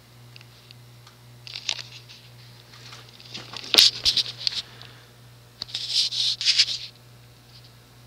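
Scratchy rustling and rubbing in three bursts, about a second and a half, three and a half and six seconds in: handling noise from the camera being moved. A faint steady low hum runs underneath.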